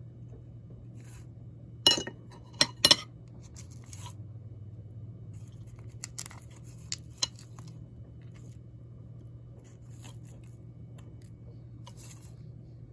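Sharp clinks and light scrapes of a utensil against the pie dish as the pastry crust is pried off a chicken pot pie: three loud clinks about two to three seconds in, a few lighter ones later, over a steady low hum.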